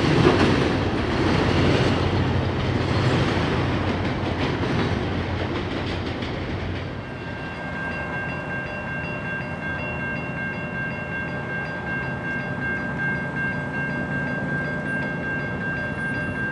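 Freight train rolling by with a low rumble and wheel clatter on the rails. About seven seconds in this gives way to a distant train horn, a steady chord held without a break.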